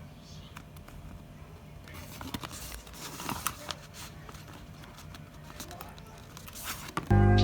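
Clear sticky tape and tape-laminated paper being handled: faint crinkling and crackling with small ticks, a few louder ticks around the middle. Background music comes back in near the end.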